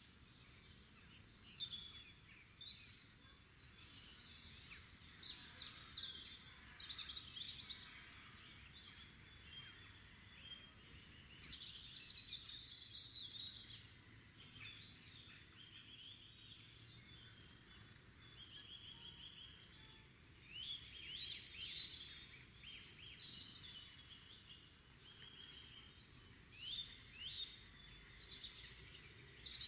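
Several songbirds singing, with frequent chirps and rapid trills overlapping, over a faint steady background hiss.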